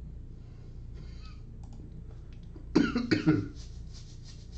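A person coughing twice in quick succession, about three seconds in.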